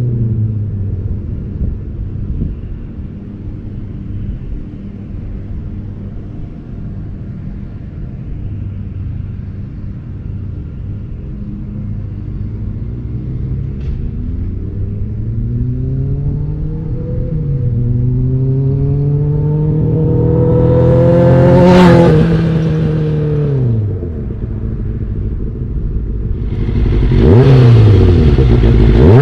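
Kawasaki ZX-6R 636 inline-four sport-bike engine revving through the gears. The pitch falls at first and runs low, then climbs with a gear change to a loud high-rev peak about two-thirds through and drops quickly as the throttle closes. It rises and falls once more near the end.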